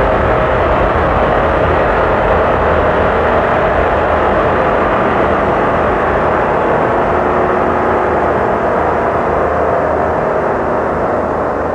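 Live experimental electronic noise music: a dense, unbroken wall of droning noise with a faint steady tone inside it. Its top end dulls and its level eases slightly near the end.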